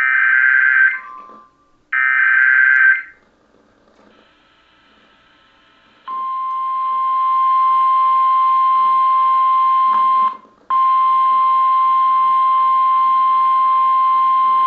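Emergency Alert System SAME header: the last two of three buzzy digital data bursts, each about a second long, announcing a Severe Thunderstorm Warning. After a few seconds' gap comes a steady single-pitch attention tone, which drops out for a moment about ten seconds in and then continues.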